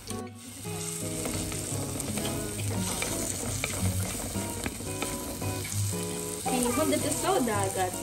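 Whole spices, onion, chilli and curry leaves sizzling in hot oil in a clay curry pot, stirred with a wooden spoon. This is the tempering stage of a prawn curry, the aromatics frying until golden.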